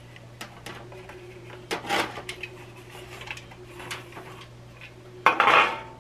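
Thin aluminium foil pie tin crinkling and clanking against a foil baking pan as a frozen pie crust is worked loose from it, with light clicks, a clatter about two seconds in and a louder rattle near the end.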